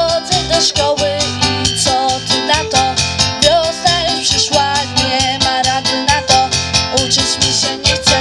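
A girl singing into a microphone over a pop backing track with a steady beat, played through PA speakers.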